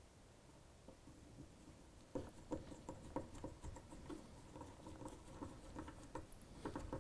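Small screwdriver driving a tiny screw through a model railway point's plastic sleeper into the baseboard. About two seconds in, a run of faint, quick scratchy clicks and creaks starts as the screw is turned in.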